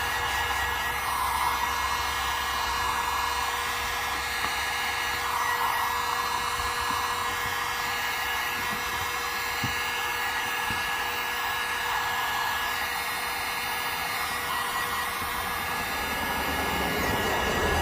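Electric heat gun running steadily, its fan blowing with a constant whine, heating a plastic car bumper to soften it so the dent can be pushed out.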